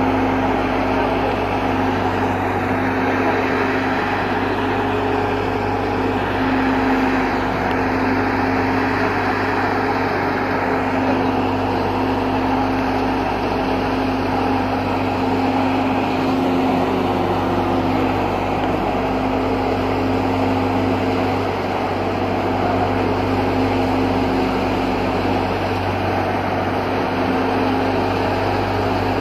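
Wheat thresher running steadily while threshing wheat: a loud, continuous machine drone with a steady low hum.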